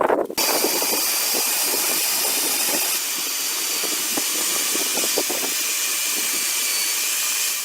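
A steady, loud hiss that starts suddenly about half a second in and holds even throughout.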